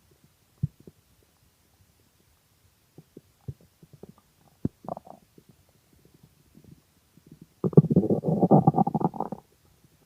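Hungry human stomach growling: scattered small gurgles and pops, then a loud, rapid gurgling rumble lasting nearly two seconds near the end.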